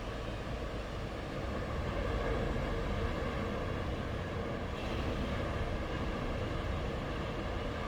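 Ocean waves breaking and washing on the shore: a continuous rushing surf noise that swells a little about two seconds in, with a brief brighter wash about five seconds in.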